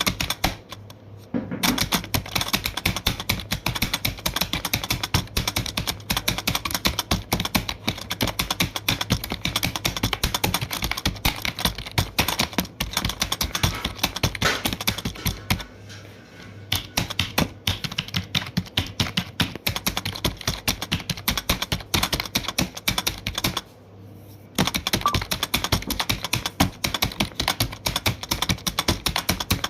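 Rapid keyboard typing: a dense run of keystroke clicks, many per second, that pauses briefly three times: near the start, about halfway through and about two-thirds of the way through.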